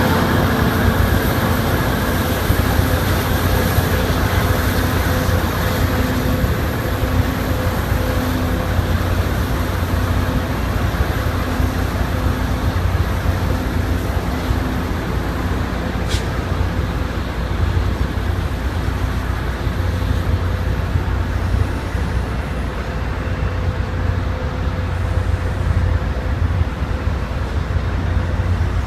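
MBTA commuter rail diesel locomotive of the kind nicknamed a "Screamer", running loud as the train departs: a steady low engine drone with held tones and a high whine that fades out partway through. A single sharp click sounds about halfway through.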